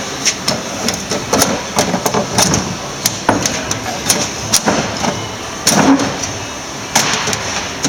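A metal tool repeatedly striking and prying at the steel locking hasp of a cash drawer, giving irregular sharp metallic knocks and clanks, roughly one or two a second. This is a forced-entry attack on the secured drawer.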